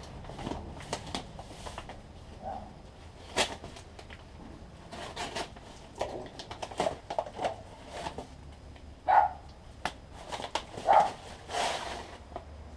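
Unboxing handling: cardboard and packaging being rummaged through, with scattered rustles, scrapes and light knocks, the loudest scrapes about nine and eleven seconds in.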